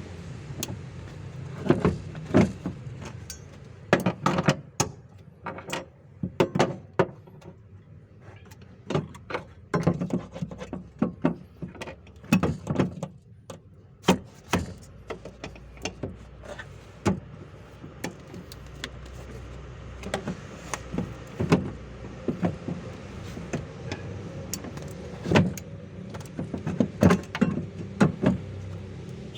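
Irregular metallic knocks and clinks of hand tools working on a car's fuel pump to free it, some single and some in quick clusters, over a low steady hum.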